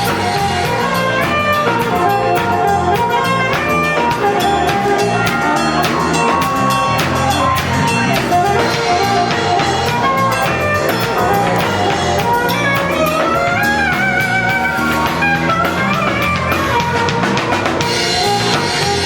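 A live band playing: drum kit keeping a steady beat under bass and guitar, with a wavering melody line over the top.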